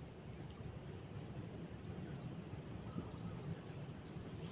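Faint outdoor riverside ambience: a steady low rumble with a few faint, short high chirps and a small click about three seconds in.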